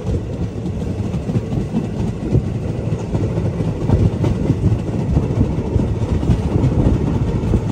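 Passenger train running at speed on the Banihal–Srinagar line, heard from an open coach doorway: a loud, steady rumble of wheels on rails with constant rattle and clatter.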